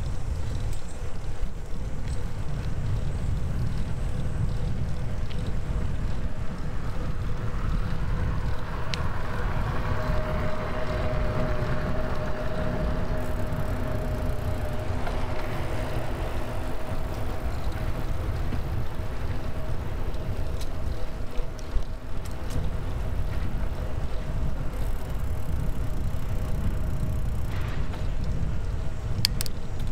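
Wind rumbling on the microphone of a moving bicycle. From about a third of the way in, a motor vehicle's steady engine hum joins it and fades slowly.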